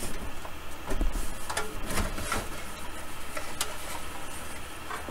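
Metal cabinet of a Hallicrafters S-40 receiver being worked loose and lifted off its chassis: several irregular knocks and scrapes of metal, the loudest in the first two seconds.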